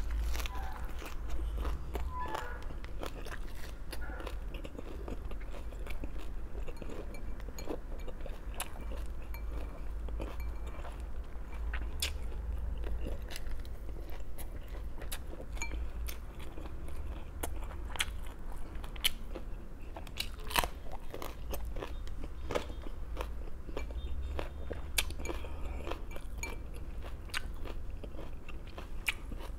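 A person biting and chewing crunchy raw vegetables, a string of irregular crisp crunches with a few sharper, louder bites now and then.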